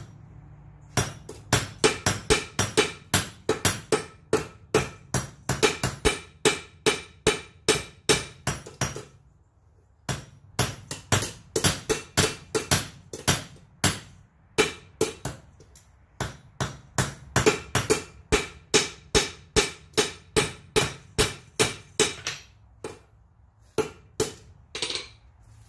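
Hand hammer striking hot steel on an anvil in steady, ringing blows about two or three a second, with a one-second pause midway and a few scattered strikes near the end. These are half-on, half-off blows flattening the end of a steel bar into a bottle opener hook.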